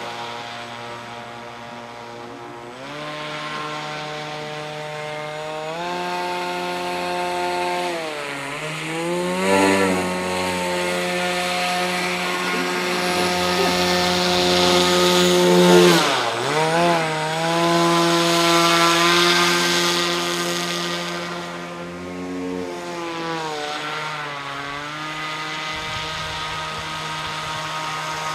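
RC airboat's NTM PropDrive 50-60 brushless electric motor spinning an APC 7x8 air propeller: a steady whine whose pitch steps up and down with the throttle, dipping sharply and recovering about sixteen seconds in.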